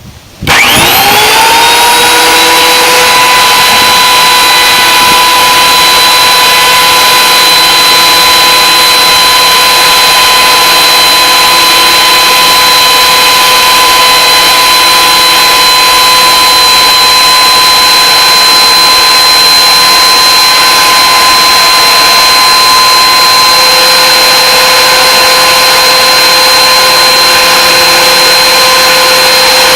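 Electric wood planer switched on: its motor spins up with a rising whine over the first second or two, then runs at a steady, loud, high-pitched whine.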